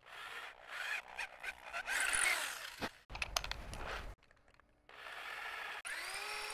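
Drill cutting into a hole in the aluminium block of a Toyota 2GR-FE V6, enlarging it to take a thread-insert tap. The bit scrapes and cuts in several short runs with brief breaks, and near the end the drill's motor is heard spinning up.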